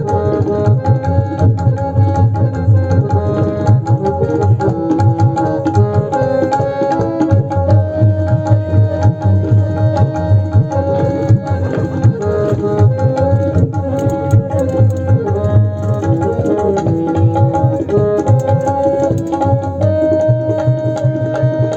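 Background music: a melody of held notes over a steady, driving hand-drum beat.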